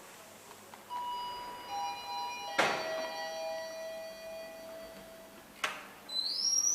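An old KONE traction elevator arriving, with two sharp mechanical clicks about three seconds apart. Over the clicks, several steady ringing tones at different pitches overlap, and a rising high tone sounds near the end.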